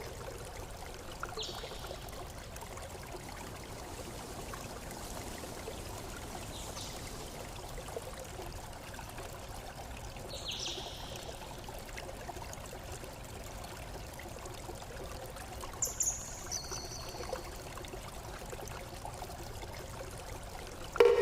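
Stream water trickling and pouring steadily, with a few brief high chirps, the loudest about ten and sixteen seconds in.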